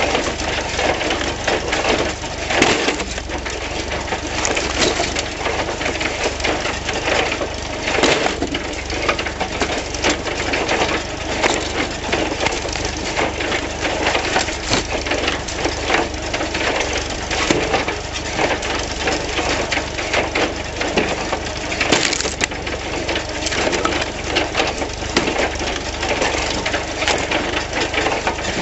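Wood splitter converted from a John Deere 14T hay baler, running continuously: wood cracking, crunching and splintering as logs are forced through the splitter, over the steady hum of the machinery driving it.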